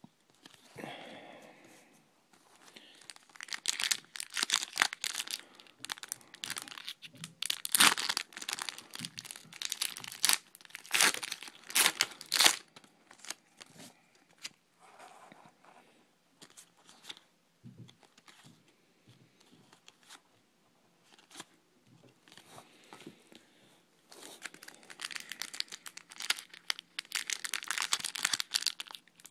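Football trading card pack wrappers being torn open and crinkled in the hands: irregular crackling and sharp tearing, busiest from a few seconds in to about halfway and again near the end, sparser in between.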